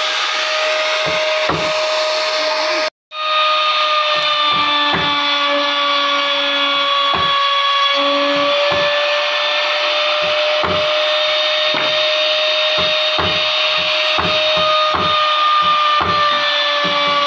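Palm router running with a steady high whine as a small board is fed past its bit, with irregular low knocks throughout. The sound drops out completely for a moment about three seconds in.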